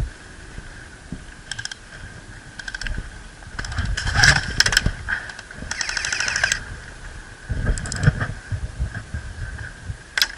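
Airsoft guns firing in rapid bursts, the loudest around four seconds in and again around six seconds in, with a few scattered single shots or clicks between.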